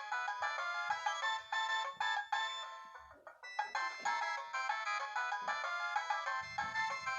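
Ringtone playing on a Tevion/Medion MP2410 mobile phone (a Philips S220 rebrand): a busy electronic tune with several notes at once, thin and without bass. It fades and breaks off about three seconds in, then starts up again after a brief pause.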